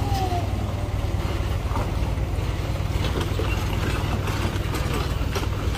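Heavy diesel truck engine running at a steady idle, a continuous low rumble.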